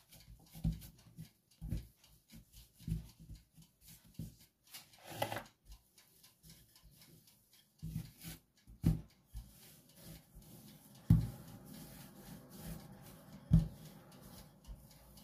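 Hands pressing and patting a ball of dough on a floured countertop, giving soft, irregular low thuds. In the last few seconds a rolling pin rolls the dough out over the counter, with a steady low rumble and a couple of sharper knocks.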